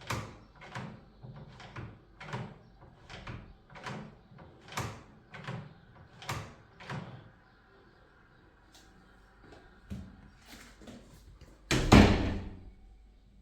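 Door handle and latch worked over and over, giving about ten clicks, one every three quarters of a second or so. A quieter stretch follows, then the door shuts with a loud bang.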